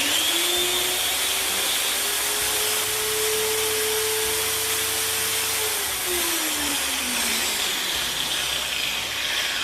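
Interskol angle grinder running at full speed under no load, a loud steady whine, on a test run after repair: the disc, which used to slip on its spindle, now turns with the motor.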